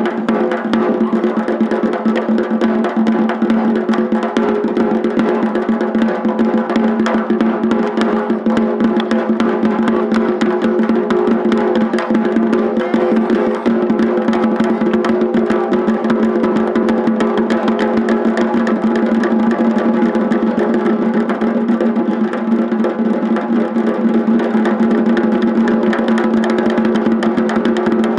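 Gojinjo daiko drumming: taiko drums beaten in a fast, unbroken barrage of strokes, with the drumheads ringing on under them.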